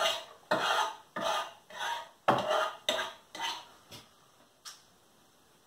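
Metal fork scraping and clinking against a stainless steel pot as steamed cauliflower pieces are lifted out, about nine short strokes roughly every half second, dying away near the end.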